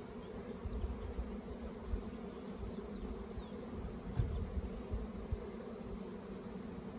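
A honeybee swarm in flight, a steady, dense buzzing hum from thousands of wings as the swarm settles into a wooden bait hive. A few low thumps come through, the strongest about a second in and just after four seconds.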